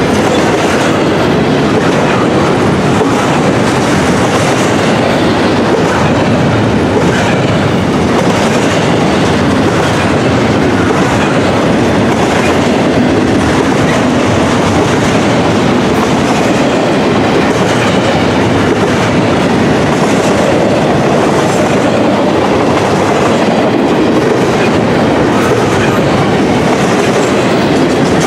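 Intermodal container train's cars rolling past: a steady, loud rumble of steel wheels on the rails, with a regularly repeating clatter.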